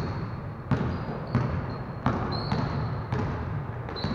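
A basketball being dribbled on a hardwood gym floor, a bounce roughly every two-thirds of a second, each one echoing around the hall. Short high squeaks of sneakers on the court come in between.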